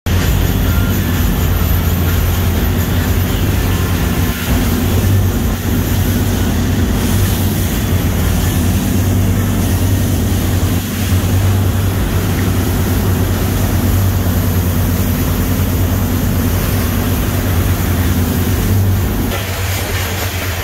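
Volvo Penta TMD diesel engines of a Cruisers 4370 express yacht running under way: a steady low drone with the rush of the wake and wind over it. Just before the end the hiss drops abruptly, leaving mostly the low engine drone.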